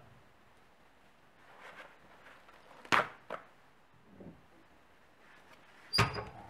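Flip-top plastic cap on a metal can of boiled linseed oil snapping open with a sharp click about three seconds in, followed by a smaller click, amid soft handling rustles. Near the end comes a sharp knock with a brief high metallic ring.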